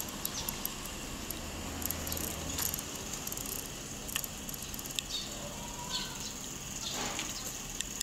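Steady outdoor background hiss with scattered brief high-pitched ticks and chirps.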